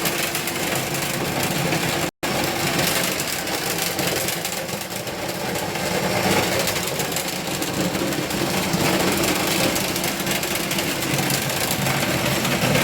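Motor-driven vent-cleaning equipment running steadily, a low motor hum under a loud rushing of air, as the dryer duct is cleaned out.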